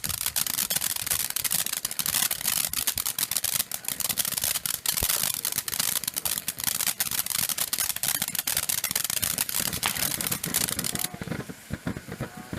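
Fireworks crackling: a dense, rapid stream of small pops and crackles that thins out abruptly near the end.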